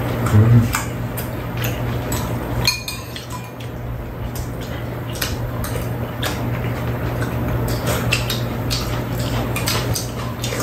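Eating at a table: spoons and chopsticks clinking against bowls and a metal tray in many short, sharp clicks, with the wet sounds of food being eaten, over a steady low hum.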